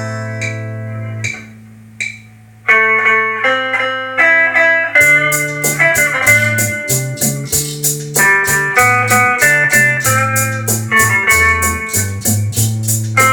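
Instrumental intro of a ballad: plucked notes over a held low bass note, then a picked melody, joined about five seconds in by a steady beat with a moving bass line.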